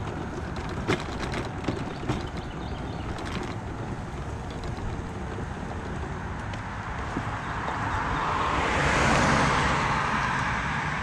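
A mobility scooter running over rough roadside grass, with a steady low rumble and scattered light knocks and rattles. About eight seconds in, a car passes on the road alongside, its tyre hiss swelling to the loudest point and then fading.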